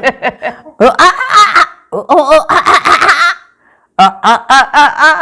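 People laughing in bursts of rapid voiced pulses, with a short break a little past the middle.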